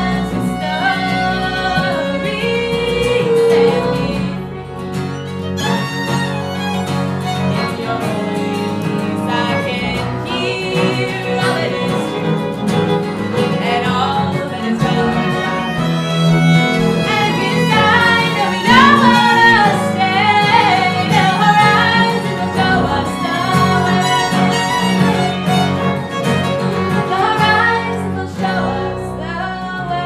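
Acoustic string band playing a folk song on fiddle, upright bass and acoustic guitar, with a woman singing over it.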